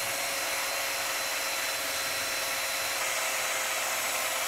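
Cordless drill spinning a small round buffing pad against a plastic headlight lens smeared with toothpaste: a steady motor whine over the hiss of the pad rubbing the lens.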